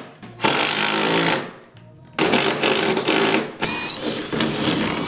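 Cordless impact driver running in three bursts of about a second each, driving screws in a plywood sheet, with the rapid hammering of the impact mechanism over the motor whine.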